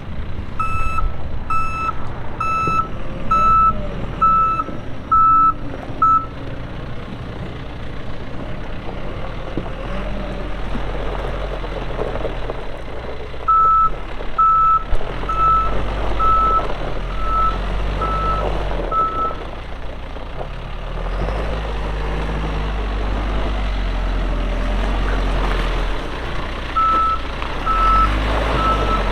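John Deere 410L backhoe loader's diesel engine running under varying load, its revs rising and falling, while its backup alarm beeps about once a second in three bouts: near the start, in the middle and near the end, as the machine reverses.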